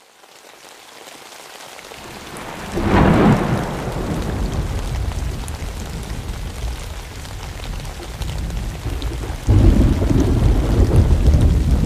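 Thunderstorm: steady rain fading in, then a crack of thunder about three seconds in that rolls on into a long low rumble. A second loud peal of rumbling thunder starts near the end.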